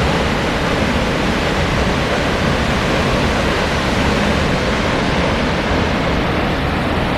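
Río Celeste waterfall pouring into its pool: a loud, steady rush of falling water.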